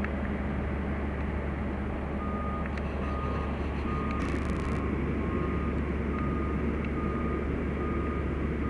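A fire truck's backup alarm beeps at a single pitch about once every 0.7 s, starting about two seconds in, over the steady low rumble of the fire apparatus engines. A short hiss comes about four seconds in.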